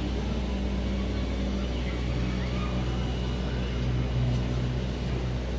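Steady low running hum of a moving passenger train heard from inside the carriage, its pitch shifting about two seconds in.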